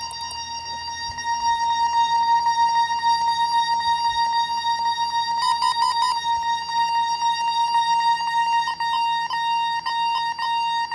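Bosch alarm keypads sounding a gas alarm: a loud, steady high-pitched alarm tone. Short pulsed beeps come in over it partway through and again near the end, the keypads' code-4 pattern mixed with the older keypads' fire tone.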